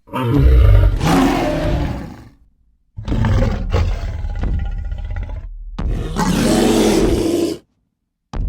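Creature roar sound effects: a long roar, a short pause, then two more roars back to back that cut off suddenly, with another roar starting at the very end.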